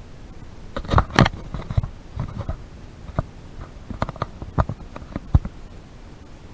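Irregular knocks and clicks of footsteps on a scaffolding walkway, loudest about a second in, with a few more sharp knocks toward the middle and a low hiss underneath.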